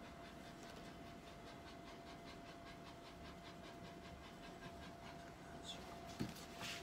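Domestic cat breathing fast and faintly, a quick even panting of about four breaths a second. A soft knock and a rustle of paper come near the end.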